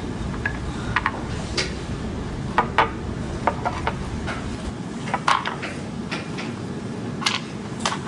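Painted wooden knobless cylinders being lifted from their wooden box and set down one at a time on a wooden table: a string of irregular light knocks and clicks.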